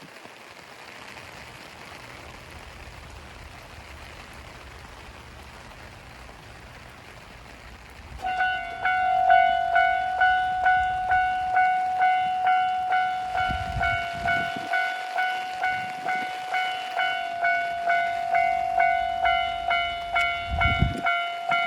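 Steady low background noise for about eight seconds, then a Japanese railway level-crossing warning bell starts, ringing a steady electronic ding about twice a second, with two short low rumbles in the second half.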